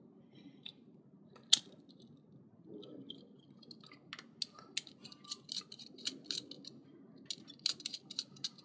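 Handling noise of a plastic 8-pin timer-relay socket base and a wire being worked into its screw terminal: one sharp click about a second and a half in, then a run of small irregular clicks and taps from about four seconds in.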